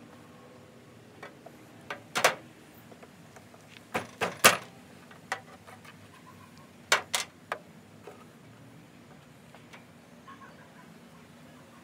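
Metal tools and latch hardware clinking and clanking while a hood latch lock is fitted on a Jeep: about a dozen sharp knocks in irregular clusters, the loudest about four and a half seconds in, over a steady low hum.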